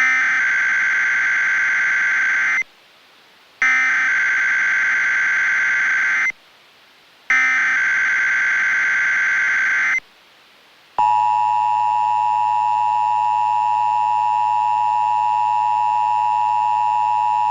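Emergency Alert System SAME header: three identical bursts of a warbling digital data tone, each about two and a half seconds long with a second of quiet between. About eleven seconds in comes the steady two-tone EAS attention signal, the cue that an alert message follows.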